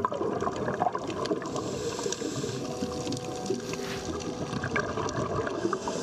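Underwater sound picked up by the camera: a scuba diver's exhaled bubbles gurgling, with constant small crackles and clicks and a faint steady hum.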